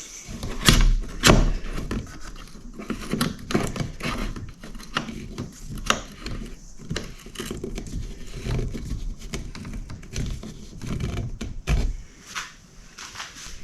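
Hands working a bungee cord hook onto a kayak seat frame: scattered clicks and knocks with rustling, the loudest knocks about a second in.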